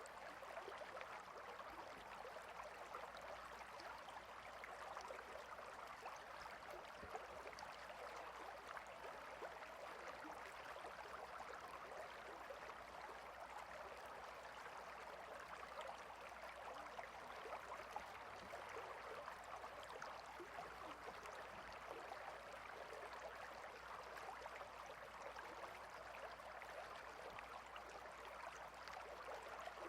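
River water flowing, a quiet, steady rush with no let-up.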